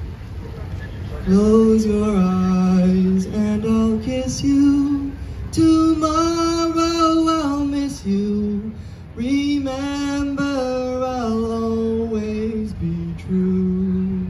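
Choir of treble and bass voices singing held notes that step from one pitch to the next without clear words, coming in about a second in.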